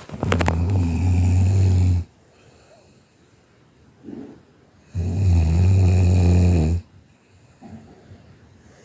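Snoring during sleep: two long, low buzzing snores, each about two seconds long and about five seconds apart, with quiet between them.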